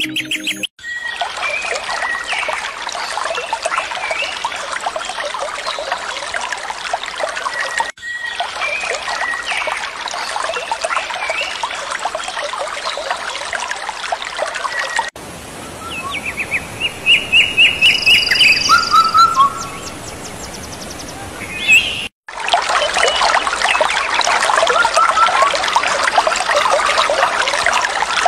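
Dense chorus of many birds chirping, in several spliced clips. In one middle section, separate clear calls stand out instead, including a fast trill of repeated notes.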